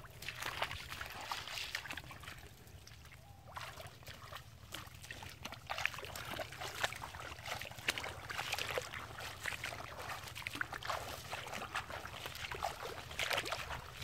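A person wading barefoot through shallow pond water among water hyacinth: irregular splashes and sloshing as each leg moves through the water.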